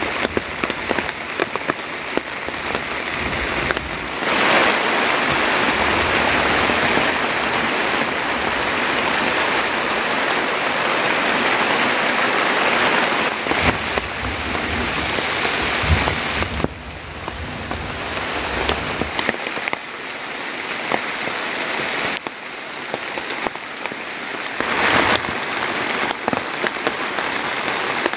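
Heavy rain falling on a plastic tarp roof, a dense steady hiss.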